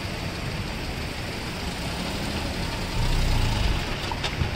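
Small car engine running at idle, most likely the stuck Maruti Suzuki Alto 800's three-cylinder petrol engine, with a louder low surge about three seconds in.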